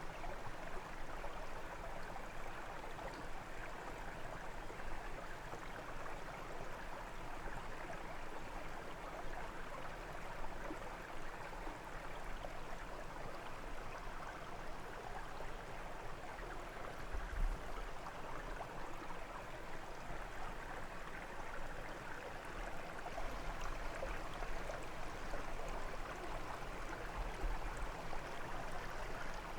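Brook flowing, a steady rush of water. One brief low rumble about seventeen seconds in.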